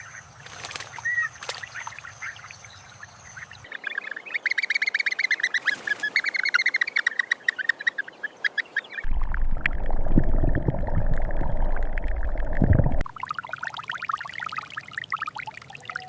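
Rapid chattering bird calls that come in several abrupt sections. A loud, low rushing noise cuts in about nine seconds in, lasts about four seconds, then the calls return.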